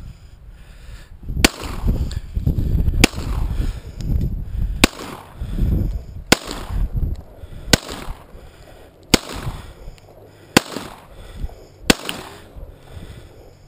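Eight shots from a Rock Island Armory GI M1911A1 .45 ACP pistol fired at a steady pace, about one every second and a half, each sharp report followed by a low rumble.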